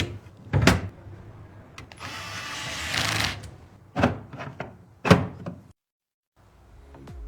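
Computer hardware being handled during a PC build: a few sharp clicks and knocks, with a scraping rustle lasting about a second in the middle.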